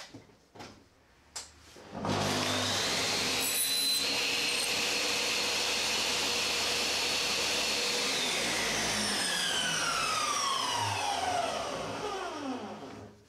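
Table saw switched on about two seconds in and running steadily with a brief cut through a small piece of wood, then switched off, its motor and blade winding down with a falling whine over the last five seconds.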